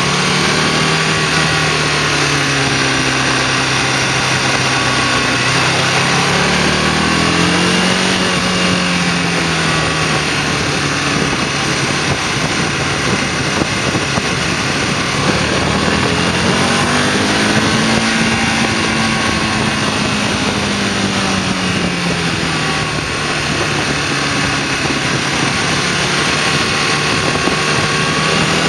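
Motorcycle engine heard from the rider's seat. Its pitch climbs as the rider accelerates and drops as he eases off, about 7 seconds in, again around 17 seconds, and once more near the end. A steady rush of wind and road noise runs under it.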